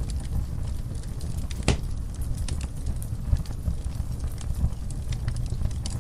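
Wood fire burning in a fireplace: a steady low rumble of flame with many small sharp crackles, and one louder pop just under two seconds in.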